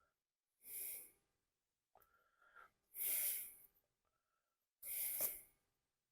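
A person breathing audibly close to the microphone: three short breaths, faint, about two seconds apart.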